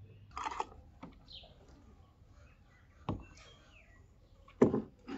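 Three short sharp knocks or clatters, the last the loudest, with faint high chirp-like sounds between them.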